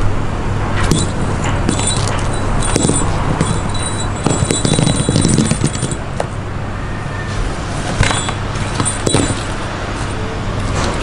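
Cat wand toy with a rattan ball jingling in short bouts as it is dangled and batted, over a steady low hum.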